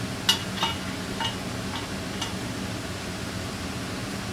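About five light metallic clicks in the first couple of seconds as a thread tap in its tap wrench is handled against an aluminium intake manifold, over a steady low hum of shop background noise.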